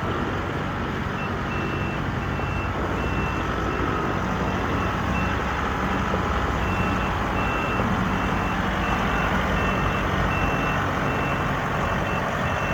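Kubota M62 tractor loader backhoe's diesel engine running steadily while its reverse alarm beeps in a regular on-off pattern, starting about a second in, pausing for a few seconds in the middle, then resuming.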